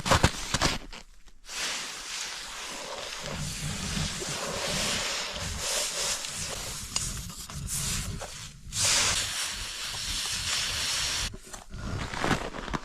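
Glowing-hot high-carbon leaf-spring steel knife blade quenched in snow, sizzling and hissing steadily for several seconds with a brief break, as the steel is hardened.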